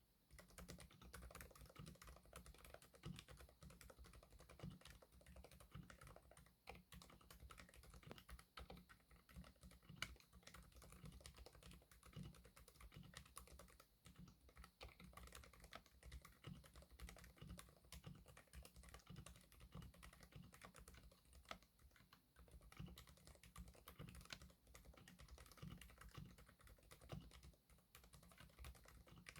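Steady, fast typing on a mechanical keyboard fitted with Keychron K Pro Silent Red linear switches in an acrylic-case Ninja71 ARC XD with OEM-profile keycaps: a continuous run of quiet, damped keystrokes.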